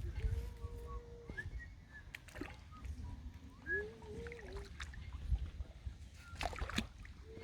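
Lake water sloshing and splashing around legs wading in the shallows, under a steady low rumble of wind on the microphone. A few faint short tones, like whistles or calls, sound now and then.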